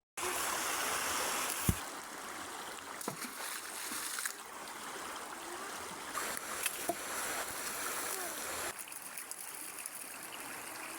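Steady rain falling, with one heavy thud about two seconds in and a few lighter knocks and drips after it.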